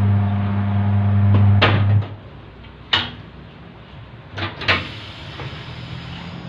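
Tyre-changer turntable motor running with a steady hum for about two seconds as the tyre is turned on the machine, then stopping. A few sharp knocks follow, two close together a little before a faint hiss sets in.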